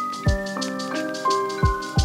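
Background music: a soft keyboard melody over a steady beat of kick drum and hi-hat.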